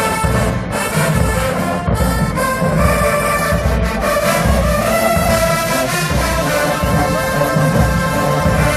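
HBCU marching band playing a loud tune: the brass section holds chords over a steady beat from the drums.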